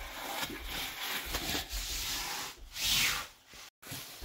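Foil-faced insulation sheet rubbing and scraping against a window and its frame as it is pressed and smoothed into place, with a louder scrape about three seconds in.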